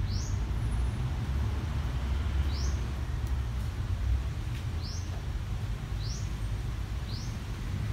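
A small bird chirping: five short, high, quickly rising chirps a second or two apart, over a steady low rumble.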